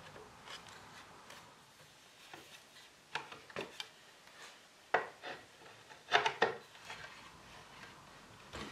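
Hand work on a wooden chair seat frame while seat straps are fitted: scattered wooden knocks and clicks with light rubbing, the loudest a quick cluster of knocks about six seconds in.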